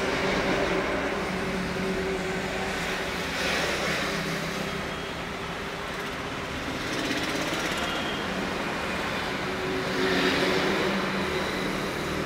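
Road traffic: a steady engine hum, swelling as vehicles pass about a third of the way in and again near the end.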